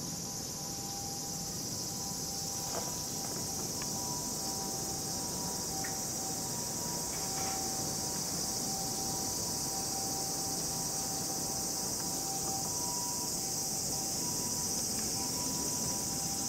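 Steady high-pitched chorus of insects, with two fainter steady lower tones and a few faint clicks.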